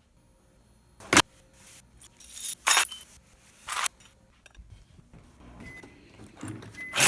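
Pieces of broken glass clinking and clattering against each other in a few separate bursts, the loudest jumble near the end.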